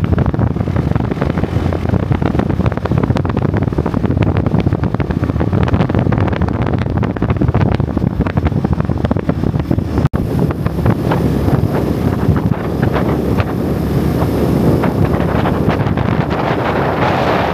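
Heavy wind buffeting on the microphone of a camera moving along with a motorbike, with the bike's running noise underneath. The sound drops out for an instant about ten seconds in.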